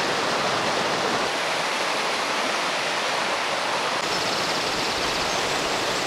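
Rushing water tumbling over rocks, a steady even hiss.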